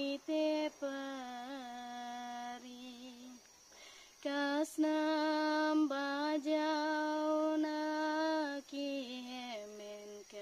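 A woman singing solo without any accompaniment, in long held notes with a slight waver. She breaks off for about a second near the middle, then comes back in on a higher note.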